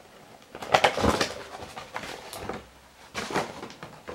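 Cardboard and plastic packaging of a Pokémon card collection box being handled, rustling and clicking in three short bursts as the jumbo card comes out.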